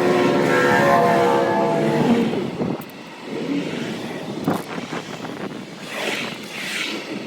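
A motor vehicle passing by, its engine note falling slightly in pitch and fading after about two seconds; softer scattered noises follow.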